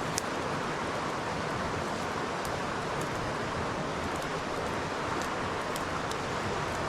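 Steady rushing of river water, with a few faint, sharp crackles from a small, newly lit campfire.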